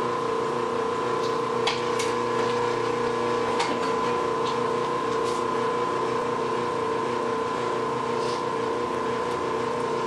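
Electric wire stripping machine with a 1.5 hp motor and gearbox, running at a steady pitch while a 14-gauge copper wire is fed through and its insulation slit by the blade. A few faint clicks sound over the running machine.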